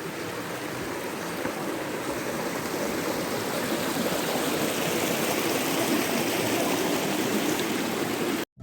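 Rushing water of a mountain stream, a steady hiss that grows gradually louder and then cuts off suddenly near the end.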